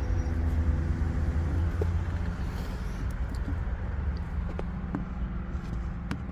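Steady low rumble, with a few light clicks scattered through it.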